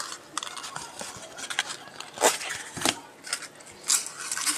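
Soft rustling and small scattered clicks of handling, with a few short, louder rustles about two, three and four seconds in.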